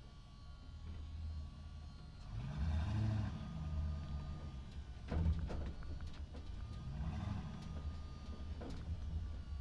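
Truck engine running in a parking structure, its pitch rising and falling twice as it speeds up and slows. About five seconds in comes a sharp knock, the loudest moment.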